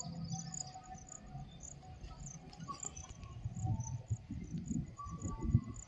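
Insects chirping steadily in the grass, a high chirp about three times a second. Low gusts of wind rumble on the microphone in the second half.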